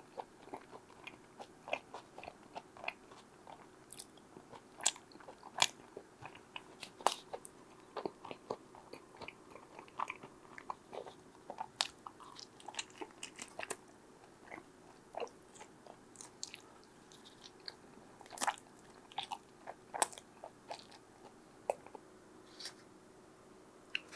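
Close-miked eating of pizza: crisp crust crunching and chewing in irregular sharp bites and crackles, some louder than others, over a faint steady hum.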